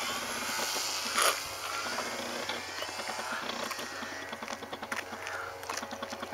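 Radio-controlled Tiger Moth biplane's motor heard faintly at a distance, its pitch gliding up and down, under a noisy rushing haze, with a sharp knock about a second in.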